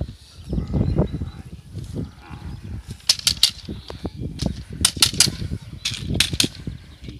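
A handler's long training stick clacking sharply in three quick runs of about three strokes each, over low scuffling as a young dog grips and tugs a bite rag.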